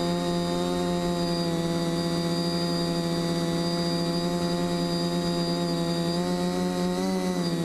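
NEX N.E.O. quadcopter's electric motors and propellers droning at a near-constant pitch, heard from the GoPro mounted on the craft, with a brief dip and wobble in pitch near the end.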